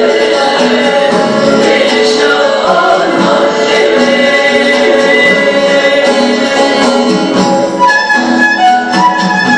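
Mixed choir singing a Turkish folk song to the accompaniment of bağlama (long-necked saz lutes). About eight seconds in, the voices stop and the instruments play on.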